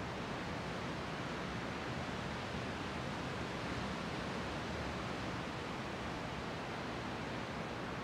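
Sea surf heard as a steady, even wash of noise, with no single wave standing out.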